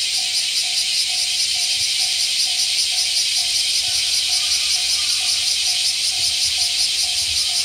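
A loud chorus of cicadas buzzing. Beneath it a level-crossing warning bell dings steadily, about twice a second.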